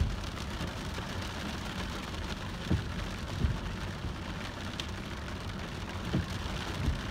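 Rain falling on a small car's roof and windshield, heard from inside the cabin as a steady patter, with a few dull thumps scattered through it.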